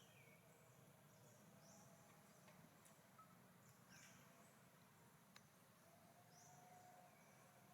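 Faint bird chirps: short high notes, each sliding down in pitch, repeating every second or two over a low steady hum.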